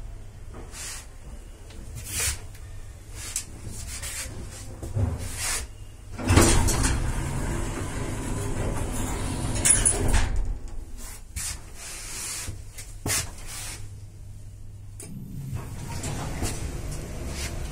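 Passenger lift with glass flap doors: a steady low hum with a series of sharp clicks and knocks from the doors, and a louder rattling stretch of a few seconds near the middle. The hum stops about three-quarters of the way through.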